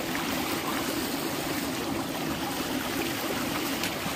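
Steady rush and lapping of river water close to the microphone, with a low steady hum underneath.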